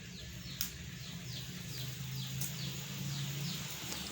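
Chicks peeping: a run of short, high peeps that fall in pitch, about three a second. Two sharp clicks and a steady low hum sound beneath them.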